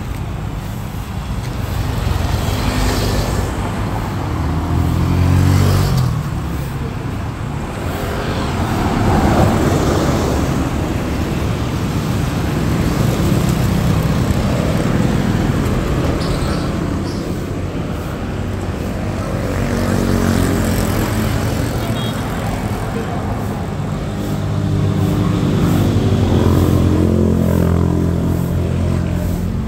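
Road traffic: motorcycles and other vehicles passing one after another, each engine swelling and fading as it goes by, with the loudest passes about five, nine, twenty and twenty-seven seconds in.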